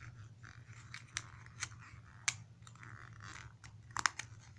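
A small cardboard toy box being folded shut by hand: light clicks and taps of the card with soft rustling, and a close pair of sharper clicks about four seconds in.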